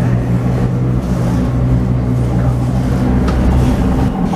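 Oslo metro train running, heard from inside: a steady low hum over rumbling wheel and running noise. The hum fades near the end.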